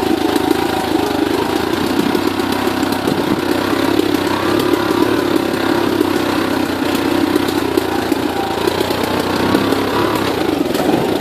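Small motorbike engine running steadily at low to moderate revs while riding a rough dirt trail, with frequent small knocks and rattles from the bumps.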